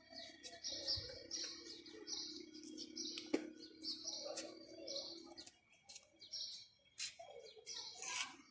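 Small birds chirping over and over in short, high notes. A low steady hum runs underneath and stops about two-thirds of the way through, and there is one sharp click a little past the middle.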